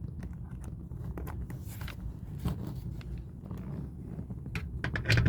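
Scattered rustling, scraping and small clicks of hands working on seat upholstery and seatbelt webbing, over a low steady hum, with a louder knock at the very end.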